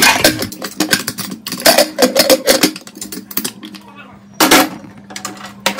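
Metal clicks and clatter of a pressure cooker lid being fitted and locked shut, a quick run of sharp knocks, over a faint steady hum.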